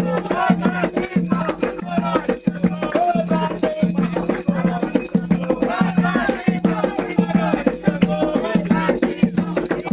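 Voices singing an Umbanda chant over shaken rattles and a steady, pulsing beat.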